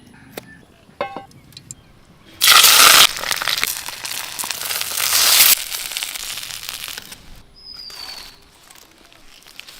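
Fish thrashing and splashing at the water surface as they feed on chicken meat: a sudden loud burst of splashing about two and a half seconds in that lasts about three seconds, then dies away.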